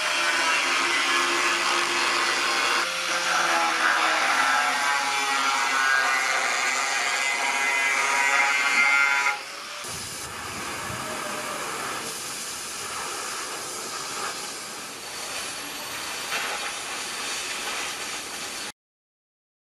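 Oxy-fuel cutting torch hissing steadily as its jet cuts through thick steel plate. For the first half the hiss is louder and carries a whistling tone, then it drops abruptly to a quieter, even hiss.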